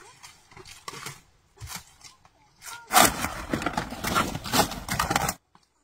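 A few light knocks, then about two seconds of loud, dense scraping and rubbing full of quick clicks that cuts off abruptly, typical of food being worked by hand on a wooden surface.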